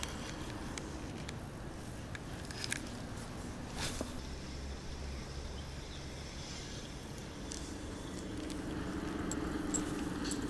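Scattered small clicks and ticks of fishing tackle being handled while a lure is changed, over a low steady hum.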